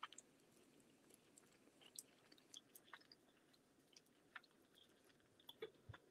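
Faint chewing of a Starburst chewy candy: scattered soft, wet mouth clicks, a few a second.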